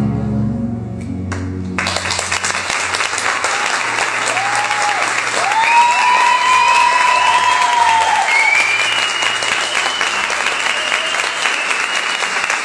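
The music dies away, then an audience breaks into applause about two seconds in, with cheering voices over the clapping.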